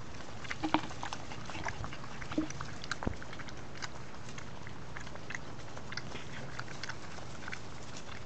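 A puppy lapping milk from a metal bowl: a quick run of small wet clicks in the first three seconds, a few of them louder. After that only faint scattered ticks over a steady hiss.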